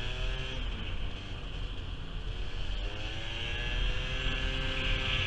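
Gilera Runner 50 scooter's two-stroke 50 cc engine running, its pitch dropping at first and then rising steadily from about three seconds in as it revs up, with one short crack near the middle.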